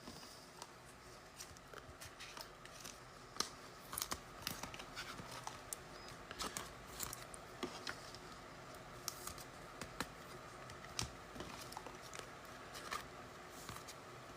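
Faint, irregular clicks and light rustling of trading cards and pack wrappers being handled.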